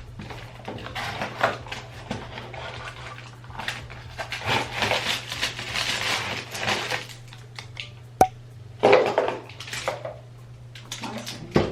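A hair-curler box and its packaging being opened and handled: rustling with scattered clicks and clatters, including a sharp click about eight seconds in, over a steady low hum.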